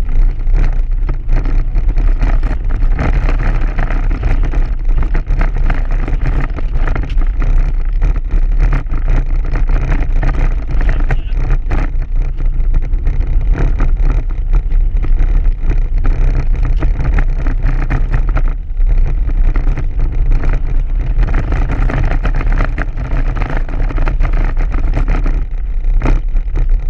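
Subaru boxer engine running hard, heard from inside the cabin, over a constant heavy low rumble, with dense knocking and rattling as the car bounces over a rough snow track.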